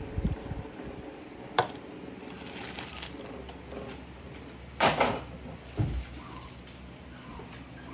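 Kitchen utensils and containers handled on a counter while sugar is measured out: a sharp click about a second and a half in, a louder clatter about five seconds in, and a dull knock just before six seconds, over a faint steady hum.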